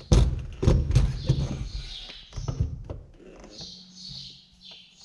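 Adjustable wrench and hands clunking and knocking on a metal pipe fitting and valve under a planter's saddle tank as the fitting is worked loose. A cluster of knocks in the first three seconds, then quieter, scattered handling ticks.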